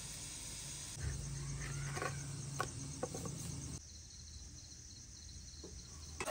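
Faint ambience with a steady high chirring of insects. From about a second in there is a low hum with a few light taps, fitting a wooden spatula stirring food in a frying pan. After that it drops to a quieter background.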